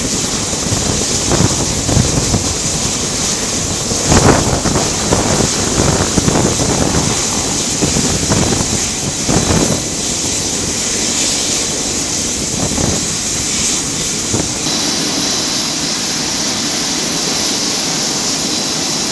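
Aircraft turbine engines running on the flight line, with a steady high whine and hiss, while an AH-1W Super Cobra taxis in for ground refuelling. The noise swells and surges unevenly in the first half, and the low rumble drops away about 15 seconds in.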